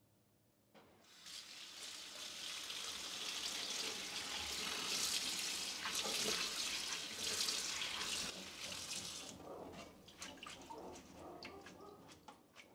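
Kitchen tap running into a sink over mung bean sprouts in a stainless-steel colander as a hand stirs them under the stream. The water stops about nine seconds in, leaving drips and small clicks from the wet colander.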